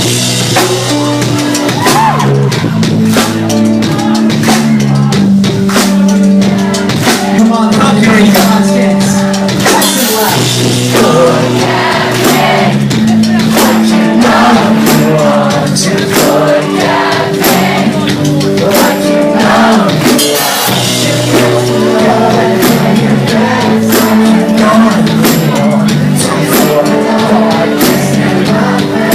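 Pop-punk band playing a song live, with a drum kit and a sung lead vocal.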